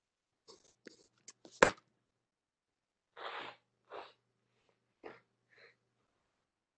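A person's sharp explosive vocal burst, like a sneeze, about one and a half seconds in, after a few small clicks, followed by four shorter breathy bursts.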